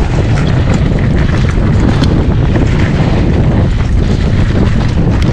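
Wind buffeting the microphone as a hardtail mountain bike rolls fast down dirt singletrack, with a steady tyre and trail rumble and scattered clicks and rattles from the bike.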